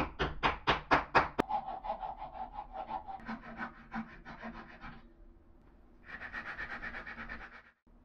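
A wooden mallet knocks a glued wooden dowel into the hole of a wooden knob, about six quick blows, then a small hand saw cuts the protruding dowel off flush with fast, even strokes in two spells, stopping abruptly near the end.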